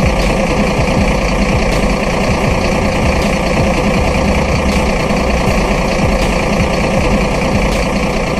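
Engine running steadily, like a diesel tractor's, with rapid even firing pulses. It is most likely an engine sound added over the toy tractor.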